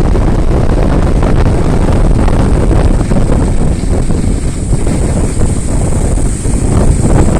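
Wind buffeting the microphone: a loud, steady rumble with no distinct events.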